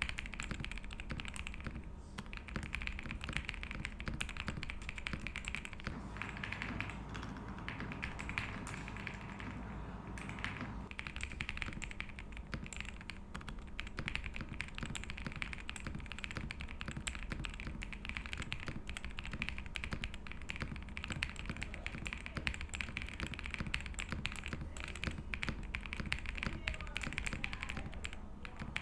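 Continuous fast typing on a Zuoya GMK67 mechanical keyboard with Wuque Studio WS Morandi linear switches and PBT double-shot OEM-profile keycaps: a dense, even stream of keystrokes with a creamy, thocky sound.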